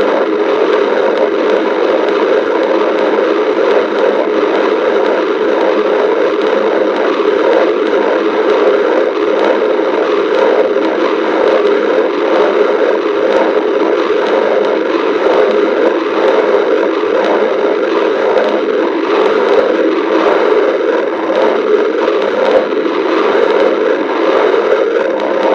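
Stomach growling, a loud, steady, crackly rumble that never lets up.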